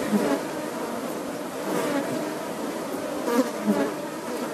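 Flying insects buzzing around, a wavering drone whose pitch keeps shifting up and down. It is a sound effect laid into the soundtrack.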